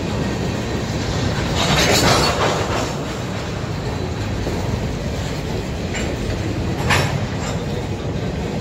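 Freight cars of a CSX train rolling past at close range: a steady rumble of wheels on rail, with a louder, harsher stretch about two seconds in and a brief sharp one near seven seconds.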